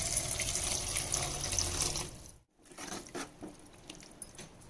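Water being poured from a vessel into a steel pan of sautéed onion-tomato masala, splashing steadily. It cuts off about two seconds in, leaving only a few faint ticks.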